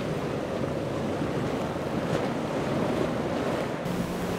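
Wind buffeting the microphone over rough surf and breaking waves, with the low hum of a powerboat's twin Mercury 350 outboards running hard through the chop.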